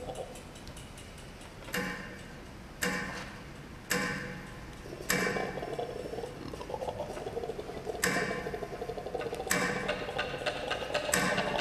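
Seven sharp percussive strikes, spaced about one to three seconds apart, each dying away quickly, over a steady droning tone that grows louder in the second half.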